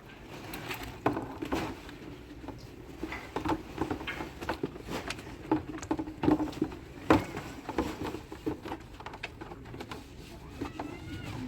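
Irregular light knocks and clicks, a few each second, like objects being handled or set down.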